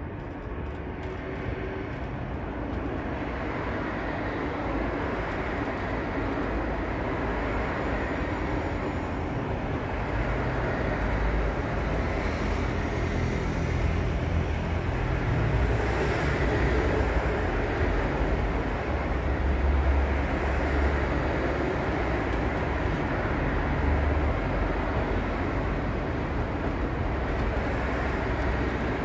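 A steady low engine rumble, like distant traffic or an aircraft, that slowly grows louder and peaks around the middle before easing slightly.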